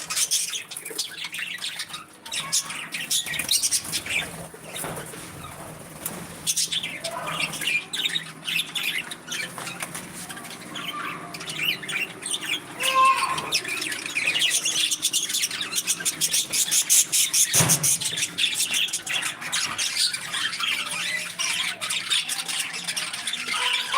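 Several budgerigars chattering in a cage: a dense, rapid run of short high chirps, squawks and warbles. A single brief knock comes about three quarters of the way through.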